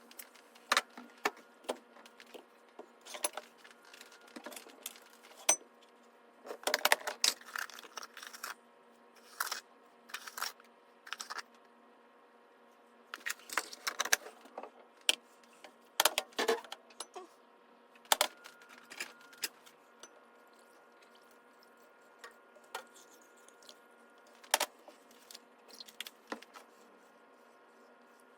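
Irregular metallic clinks and knocks of hard objects being handled, coming in clusters with short pauses, over a faint steady hum.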